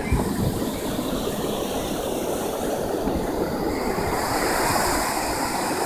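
Ocean surf washing onto the beach, a steady rushing noise.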